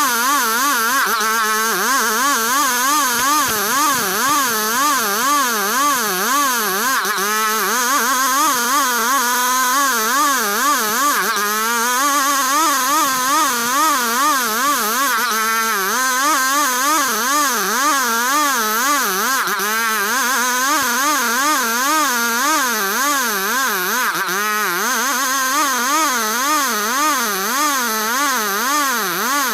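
Engine-powered saw running hard while cutting ulin ironwood, a steady loud motor whose pitch wavers up and down about twice a second as the load on the blade changes.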